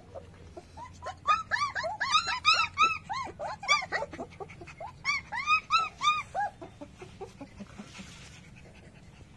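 German Shepherd puppies, about four weeks old, whimpering: a quick run of short, high squeaks that each rise and fall in pitch, some overlapping, thick from about a second in and dying away after about six seconds.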